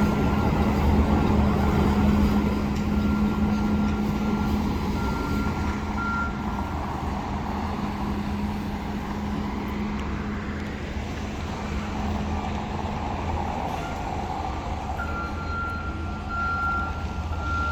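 Reversing beeper of a truck or other heavy vehicle backing up, sounding one steady pitch over a continuous low engine rumble. The beeping stops about six seconds in and starts again near the end.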